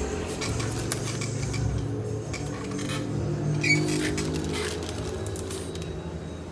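French bulldog growling low during a tug game while the plastic bag in its mouth crinkles and rustles as it is shaken. The growl fades out after about four and a half seconds; the crackling of the bag goes on throughout.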